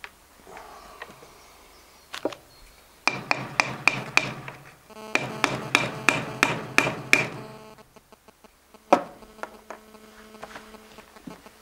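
Two quick runs of light taps, about five a second, then a single louder knock. The taps come from a wooden tool seating a bullet in the open chamber of an 1849 Herzberg kammerlader rifle, and the metal rings after each one.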